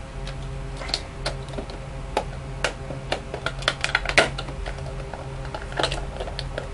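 Packaging of a hand warmer being opened and handled: a run of sharp clicks and taps, thickest around the middle, over a steady low hum.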